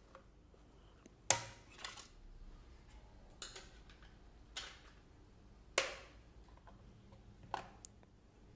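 Sharp clicks and snaps from handling a Fujifilm Instax Mini 8R instant camera's plastic body and parts, about six spread over several seconds, the loudest a little over a second in.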